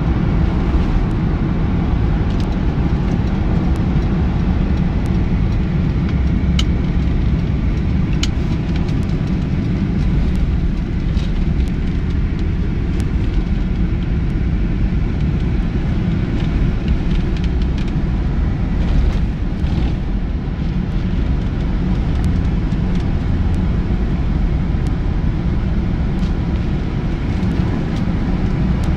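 Steady low rumble of a car driving, road and engine noise heard from inside the cabin, with a few faint clicks.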